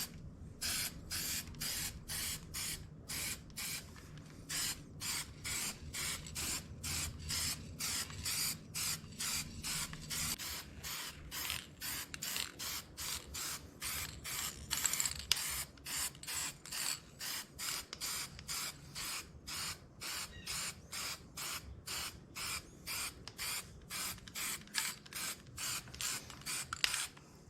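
Paint being sprayed in short, evenly repeated hissing bursts, about two a second, as a coat is laid on.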